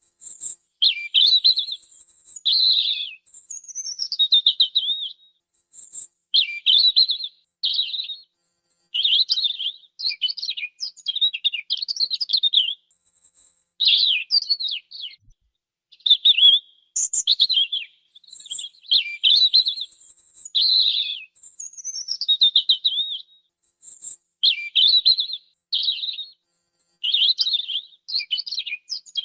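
European robin singing: short warbling phrases mixed with thin high notes and quick downward slurs, each phrase followed by a brief pause, every second or two.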